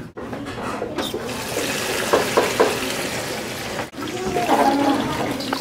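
Kitchen tap running into a stainless steel bowl of vegetables in a steel sink, the stream splashing over the vegetables as hands rub and turn them.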